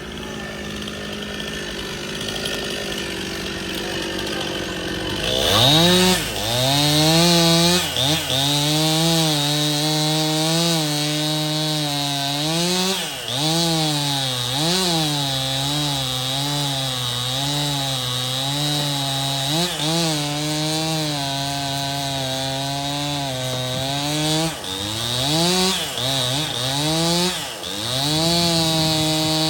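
Stihl chainsaw revving up about five seconds in and running at high speed, its pitch dipping again and again as the chain bogs into the wood and recovering between cuts.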